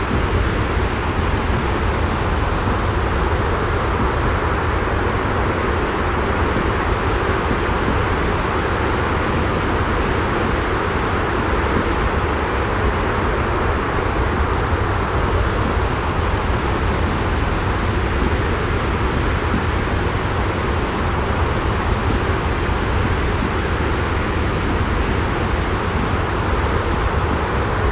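Steady, unchanging deep noise with no separate events: a looped sleep white-noise track that its uploader calls jet white noise.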